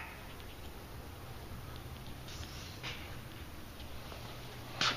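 A steady low hum with a few soft brushing rustles of handling, the loudest just before the end.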